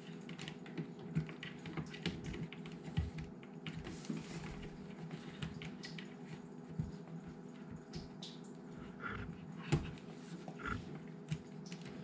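Irregular light clicks, taps and rustles of hands handling wiring and plastic parts at the base of a dishwasher during a pump and motor replacement, over a steady low hum.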